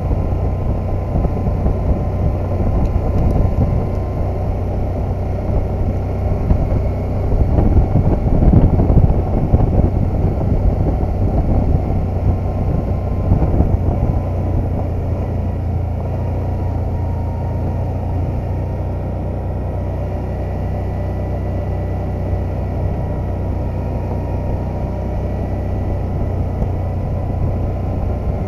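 ATV engine running at a steady cruising speed, with a low hum and a faint steady whine over it, mixed with the rumble of tyres on a gravel road. The noise grows rougher and louder for a few seconds about eight seconds in.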